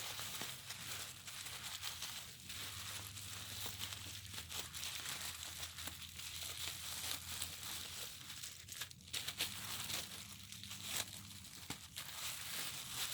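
Plastic packaging crinkling and rustling, with short tearing sounds, as a parcel is unwrapped by hand.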